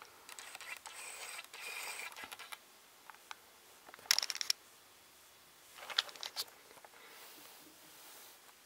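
Paper pages of a hardcover art book being handled and turned: a soft rustle, then two short crackling bursts of paper about four and six seconds in.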